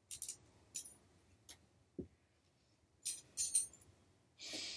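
Metal air-fryer rotisserie parts clinking as they are handled: a few light clinks, a dull knock about two seconds in, then a quick run of clinks a second later.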